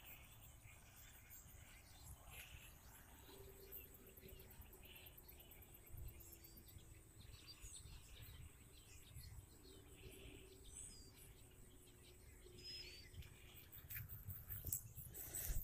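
Near silence: faint outdoor ambience with a few short, faint high chirps and a faint low hum that comes and goes twice, then a knock near the end.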